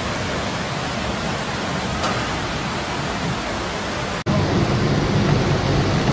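Flash-flood water rushing down a city street, a steady noisy wash. About four seconds in it cuts to another recording where the rush is louder and deeper.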